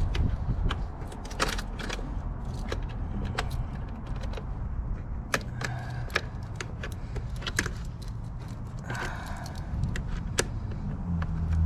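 Irregular metal clicks and clinks of hand tools and bolts being handled during battery installation work under the hood. A steady low hum sets in near the end.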